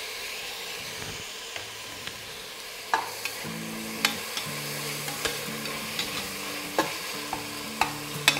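Freshly added chopped tomatoes frying in oil with onions and ginger-garlic paste in a metal pot, sizzling steadily. A slotted steel spatula stirs them, scraping and clicking against the pot about once a second from about three seconds in.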